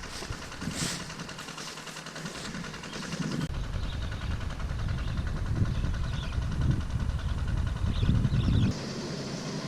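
Combine harvester's engine running in the rice field, a steady mechanical rumble that grows louder about three and a half seconds in and drops off abruptly near the end.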